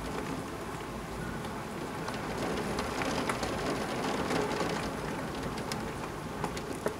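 Steady heavy rain falling, with scattered sharp raindrop ticks against the window glass. The rain grows a little louder in the middle.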